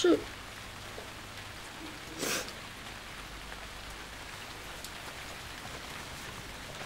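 Steady rain falling, a soft even hiss, with one brief louder rush of noise about two seconds in.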